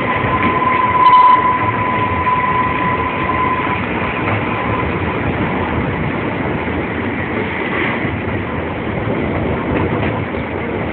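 A train running along the track with a steady rumble and some clickety-clack of the wheels. A steady high-pitched whine sounds over it and fades out about four seconds in.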